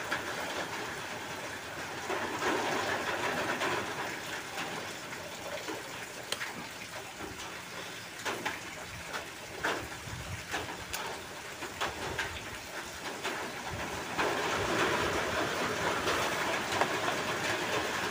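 Light clicks and taps of small metal parts as a motorcycle front brake master cylinder is taken apart and its piston and spring are worked out, the clicks coming mostly in the middle. Under them is a steady rushing background noise that grows louder twice.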